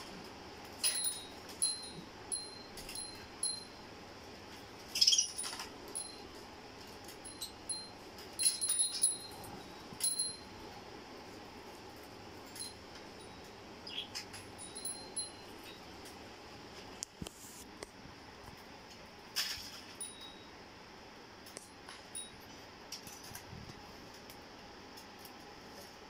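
A small metal bell on a budgerigar cage toy tinkling in short, light rings again and again as the birds move on the perches and swing, with a few brief, louder rustling bursts.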